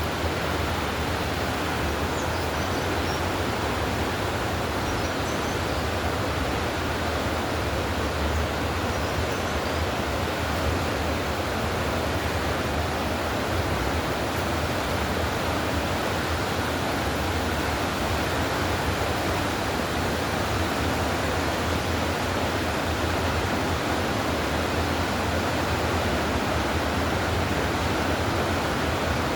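Steady rushing of a river's flowing water, with a few faint, high chirps in the first ten seconds.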